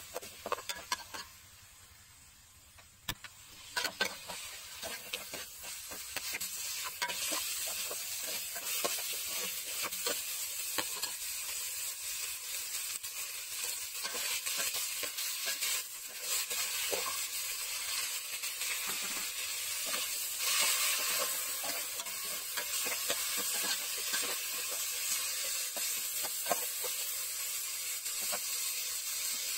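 Bone-in chunks of meat sizzling in hot oil in a metal pot, with the clinks and scrapes of a metal ladle stirring them. The sizzle drops low about two seconds in, then builds back up and holds steady.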